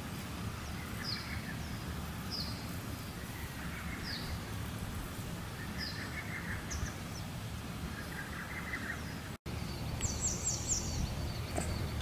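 Wild birds chirping outdoors: short high downward notes repeating about once a second over a low steady background rumble. The sound drops out for an instant about three-quarters in, and a quick run of higher, rapid chirps follows.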